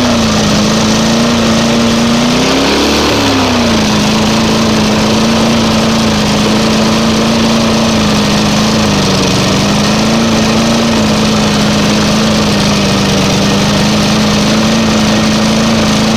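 Lawn mower engine running at a steady speed, briefly speeding up and settling back about three seconds in.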